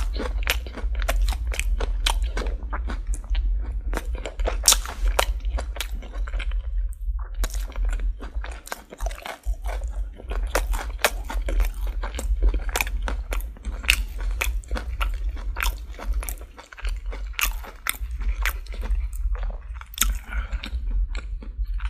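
Chewing and biting into crispy fried chicken: the breading breaks in dense, sharp crunches, with a short lull about seven seconds in. A steady low hum sits beneath.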